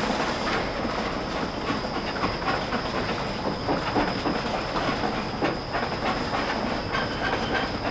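Railway turntable turning with the Class 52 steam locomotive 52 6106 on its bridge: irregular clanking and rattling over a rumble. A steady high whine runs beneath it, with a light hiss.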